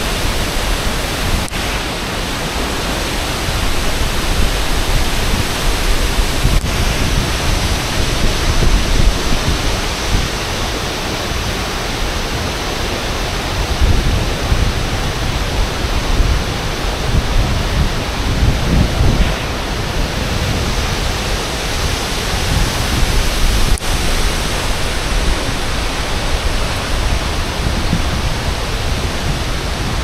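Thompson Falls, a high waterfall, plunging into its pool: a loud, steady rush of falling water with an uneven low rumble underneath.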